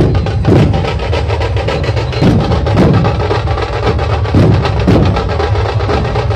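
A Maharashtrian dhol-tasha troupe drumming loudly: big barrel dhols booming about twice a second under a fast, unbroken patter of stick strokes.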